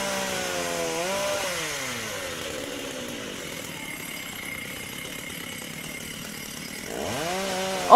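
Chainsaw engine revving, its pitch falling away over the first two seconds and dying down, then revving up again near the end.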